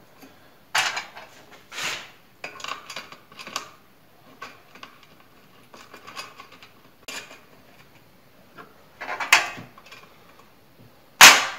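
Scattered metal clinks and knocks of a 2 mm steel angle-bar leg and its nuts and bolts being handled and fitted against the table saw's body. The loudest, sharpest knock comes near the end.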